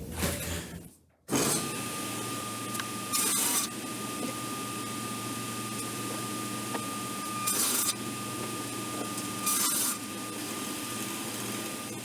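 Woodworking power tool running steadily with a constant high whine while cutting a rabbet along wooden hive side boards. It starts about a second in, and three brief louder hisses come through during the cut.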